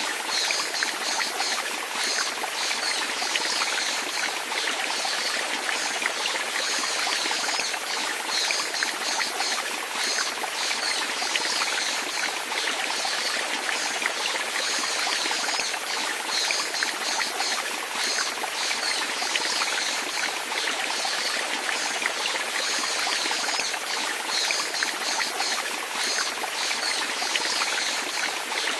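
Water flowing steadily with a continuous trickling, splashing hiss that is strongest in the upper range and never changes.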